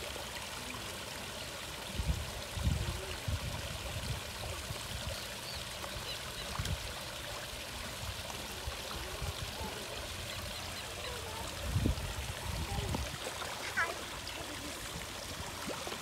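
Steady rush of water from a small waterfall spilling into a garden pond, with a few low rumbling bumps about two and twelve seconds in.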